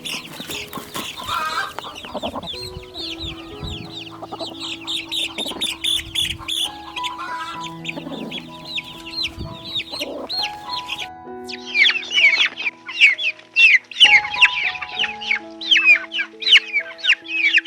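Baby chicks cheeping continuously: a dense stream of short, high peeps, each falling in pitch, growing louder a little past the middle. Soft background music with held notes plays underneath.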